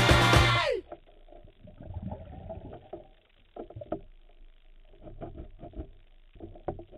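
Background music cuts off within the first second with a falling pitch. Then comes muffled underwater sound picked up through a camera housing: low rumbling with irregular knocks as a diver handles hardware on a boat's hull.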